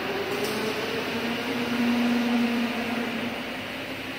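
Wood CNC router's axis motors whining as the spindle is jogged across the table from the DSP handheld controller. The pitch rises in the first half-second as it speeds up, and the tone is loudest around the middle, over a steady hiss.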